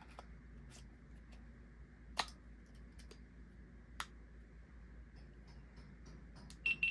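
Small clicks and plastic handling noises from a GoPro Hero 12 action camera being handled, with two sharper clicks about two and four seconds in. Near the end come a few short, high-pitched beeps at one pitch, the camera's power-on beeps.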